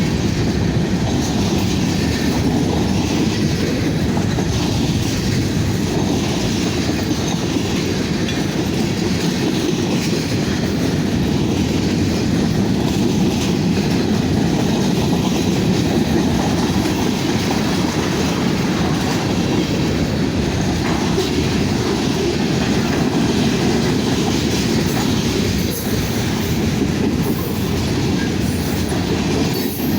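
Fast freight train passing: a steady rumble of wheels on rail, with the clickety-clack of the cars going over the rail joints.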